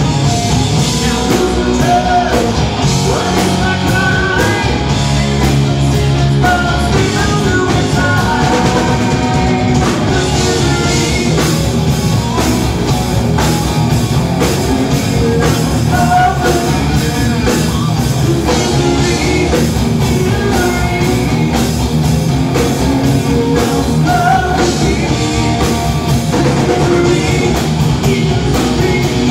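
Rock band playing live: drum kit and electric guitar, loud and continuous.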